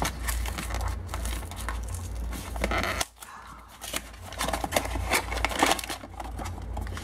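Cardboard blind box being opened by hand: flaps tearing and scraping, then a foil bag being pulled out and crinkling near the end.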